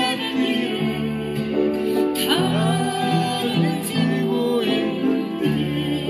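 Upright piano played by ear: a song melody over sustained chords, with a singing voice with vibrato heard along with it.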